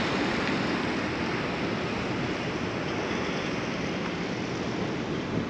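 Steady wash of Pacific surf breaking on the rocky shore, mixed with wind.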